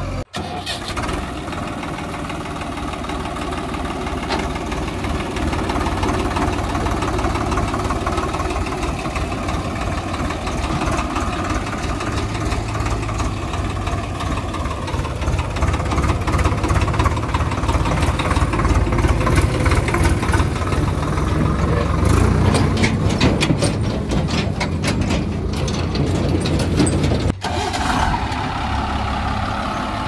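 Swaraj 744 XT tractor's diesel engine running as it drives past pulling a loaded tipper trolley, growing louder midway, with clattering near the end.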